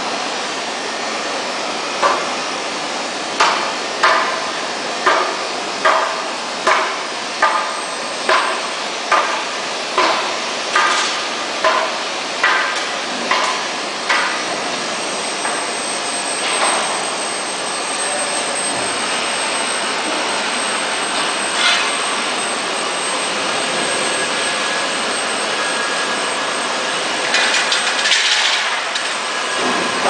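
Steady workshop machinery din with a run of about fifteen ringing strikes of a hammer on metal, a little over one a second, that stop about halfway through. A faint high whine then sets in, with a brief clatter near the end.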